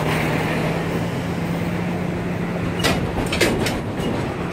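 Tractor-trailer truck passing close by, with a steady engine hum and rolling noise. A few sharp clatters come about three seconds in.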